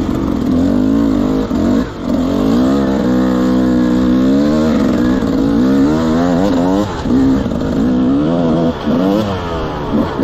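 Enduro dirt bike engine revving up and down over and over as the throttle is worked, its pitch constantly rising and falling, with brief drops in loudness as the throttle is shut about two seconds in and several times near the end.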